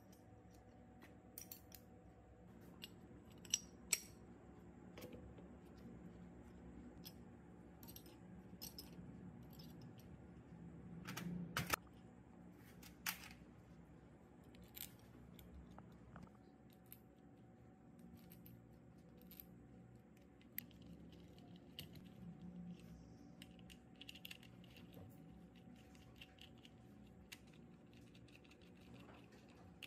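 Small metal parts and hand tools being handled: scattered light clicks and clinks, two sharper ones a few seconds in and a short scrape about eleven seconds in, over a faint steady hum.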